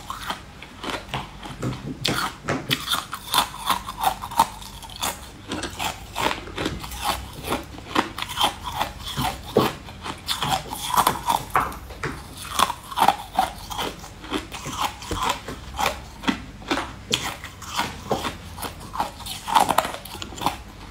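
Close-miked crunching and chewing as someone bites through firm green sticks taken from a silicone mould: many sharp, irregular crunches one after another.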